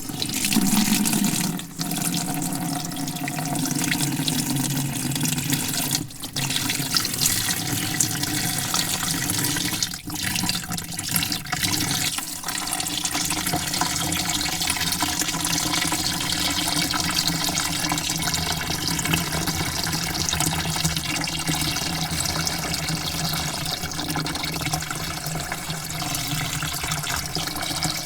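Water pouring steadily into a bucket, a continuous splashing rush with a few brief dips in the flow.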